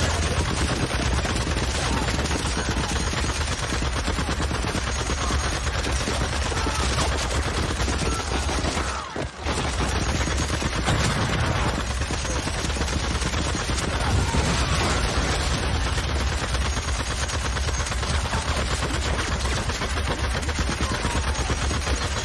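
Hand-cranked Gatling gun firing continuously in rapid fire, with a brief break about nine seconds in.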